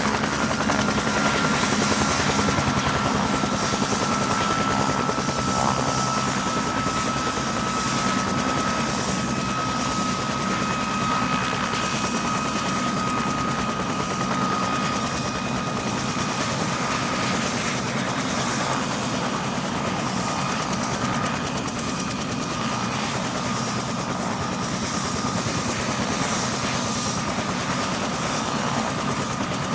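Helicopter flying: steady rotor and engine noise, with a high whine that slowly falls in pitch over the first half.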